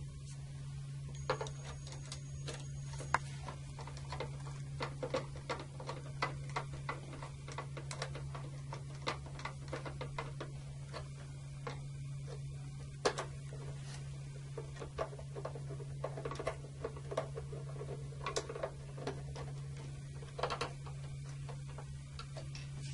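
Screwdriver driving in the screws that hold the front cover on an Eaton Series NRX air circuit breaker: irregular small clicks and taps of the tool and screws against the cover, over a steady low hum.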